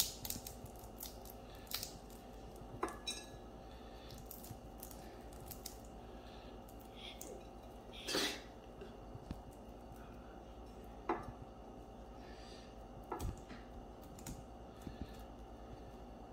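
Roasted chestnut shells crackling and snapping as they are peeled by hand, a few sharp cracks and clicks spaced a few seconds apart, with bits of shell clicking onto a ceramic plate.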